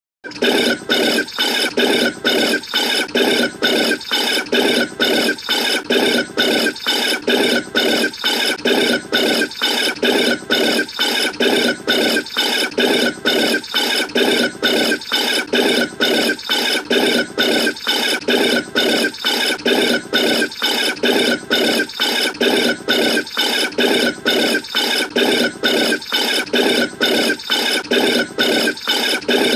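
A bird calling over and over without a break, in an even repeating rhythm of about one and a half calls a second.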